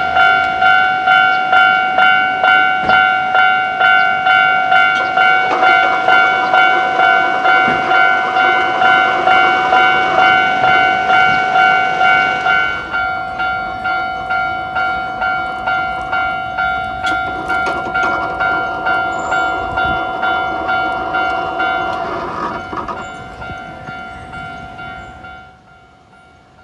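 Japanese level-crossing warning bell ringing in a steady rhythm of about two strokes a second, while a train passes with its wheels clacking. The ringing weakens about halfway through and fades out near the end.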